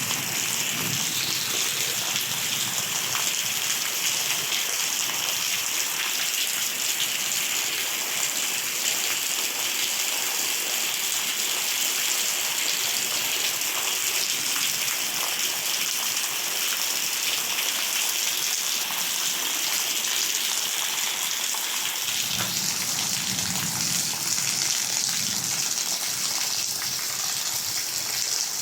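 Heavy rain falling steadily, a dense, even hiss. About three-quarters of the way through, a lower rushing, splashing sound of running water joins it.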